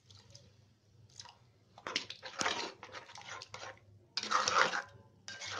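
Metal ladle stirring a watery curry in an aluminium kadhai: wet sloshing and scraping against the pan in several bursts, the loudest about four seconds in.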